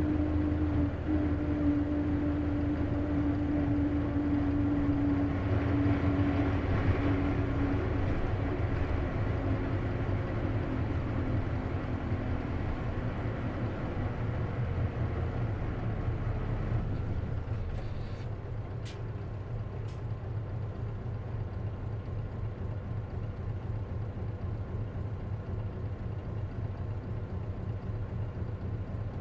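Interior of an Isuzu KC-LV380N city bus with a manual gearbox: the engine and driveline run with a strong steady whine for the first several seconds, which fades as the bus slows. The sound drops to a quieter engine rumble about 17 seconds in, with two light clicks shortly after. This bus has an abnormal running noise that the owner suspects is typical of manual-transmission buses.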